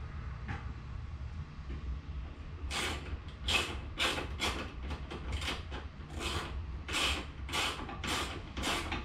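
Quick, even rasping strokes from a hand tool working the plastic box, about two a second, starting about three seconds in.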